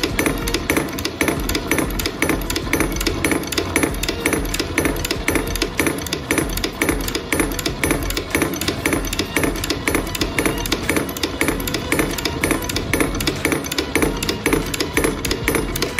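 Electric Casagrande liquid limit apparatus running its blow test: the motor-driven cam lifts the brass cup and drops it onto the base, a rapid, even clacking at about two blows a second (59 blows in 30 seconds) over the hum of the drive motor.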